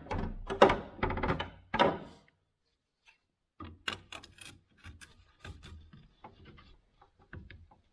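Small hand tools scraping, clicking and snipping against thin metal on a Craftsman table saw motor as it is cut and pried. The handling is busy for about two seconds, pauses briefly, then goes on as scattered clicks and scrapes.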